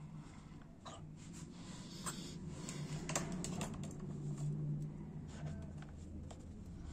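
Scattered light clicks and taps of small metal tools and parts being handled on a workbench, over a low steady hum.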